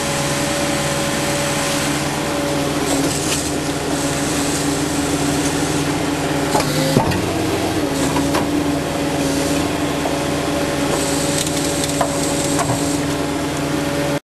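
Truck engine running steadily at a constant pitch, with creaking, scraping and a few sharp knocks over it; the loudest knock comes about seven seconds in.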